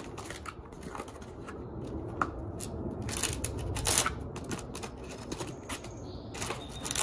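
Irregular clicks, scrapes and rattles of parts being handled and pried at by hand while taking apart electronics, with a louder cluster about halfway through and again near the end.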